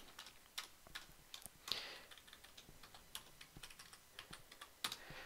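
Computer keyboard being typed on: faint, irregular keystroke clicks.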